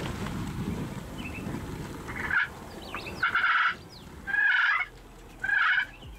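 Wild turkey gobbler gobbling: a short call, then three loud rattling gobbles about a second apart in the second half, after a couple of seconds of low rumbling noise.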